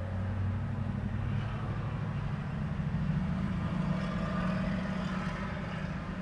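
Road traffic: a motor vehicle's deep engine hum that climbs in pitch about two seconds in, with tyre and road noise swelling toward the middle as a vehicle passes close by.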